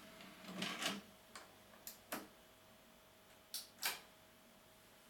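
Technics SL-P777 CD player's disc tray finishing its close with a brief motor whirr, followed by a series of short mechanical clicks, two of them close together near the end.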